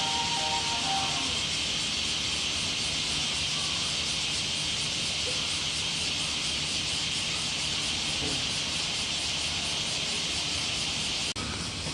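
Summer cicadas droning in a steady high-pitched chorus with a fast, even pulse, breaking off abruptly near the end.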